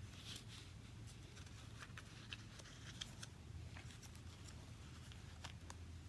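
Faint rustling and light ticks of paper as a card and the pages of a handmade traveler's notebook are handled and turned, over a low steady hum.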